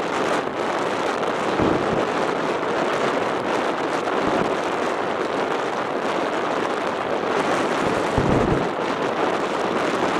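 Strong storm wind blowing across the microphone: a steady, loud rushing noise, with low thumps from heavier gusts about two seconds in and again near the end.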